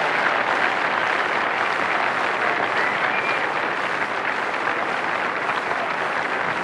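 Large convention crowd applauding, a dense, steady clapping that holds at an even level.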